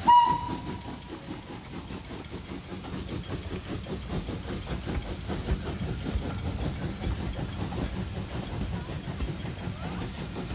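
Steam locomotive's whistle gives one short blast right at the start. Then the steam train runs on with a steady hiss and an even, rhythmic beat.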